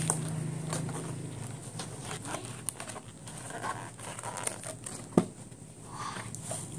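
Paperboard takeaway meal box being opened and handled, with a plastic fork crinkling in the hands: scattered rustles and light clicks, and one sharp click about five seconds in.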